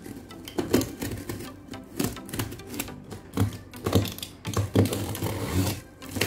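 Utility knife slitting packing tape on a cardboard box, an uneven run of clicks, scrapes and dull knocks as the blade cuts and hands press on the cardboard. Background music plays underneath.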